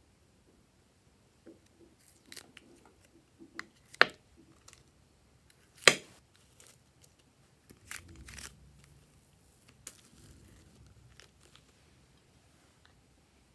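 Soft modelling clay being pulled out of a plastic cat-face mould tray and laid onto slime. The plastic tray gives several sharp clicks and crackles, the two loudest about four and six seconds in, with quieter tearing and squishing between.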